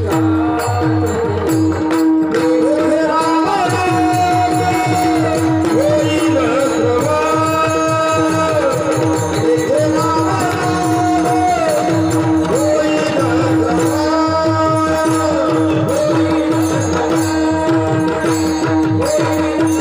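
Devotional kirtan music: fast, dense hand-drum strokes under one held drone note, with a melody above it in long phrases that rise and fall every few seconds.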